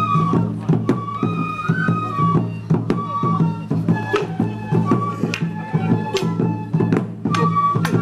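Japanese folk festival music: transverse flutes playing a melody over drums, with sharp knocks at irregular intervals throughout.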